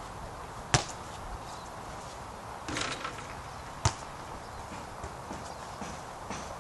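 A basketball bounces hard on the court twice, about three seconds apart, with a short swish of the net between them as the shot drops through.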